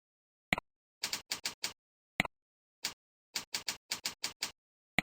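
Computer keyboard keystrokes in two short runs, about four keys and then about eight, with single mouse clicks before, between and at the end, over dead silence: a username and password being typed into a login form and submitted.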